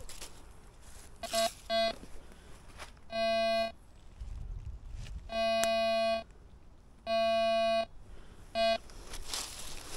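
Metal detector giving six steady, buzzy electronic beeps at one pitch: two short, then three longer, then one short near the end.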